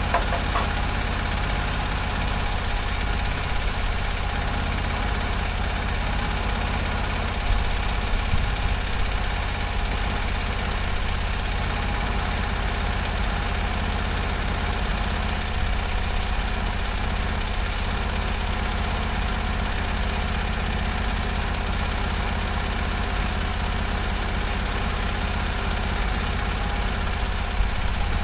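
Engine running steadily at an even speed, most likely the Norwood HD38 sawmill's engine.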